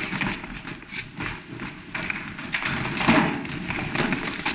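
Quick, irregular footsteps and knocks as several men hurry across a hard courtroom floor, the loudest knock about three seconds in, over the steady hiss of an old film soundtrack.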